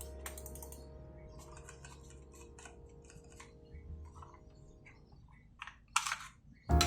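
Scattered light clicks and taps, with the tail of background music dying away under them; a louder rustling burst about six seconds in, then music starts again loudly near the end.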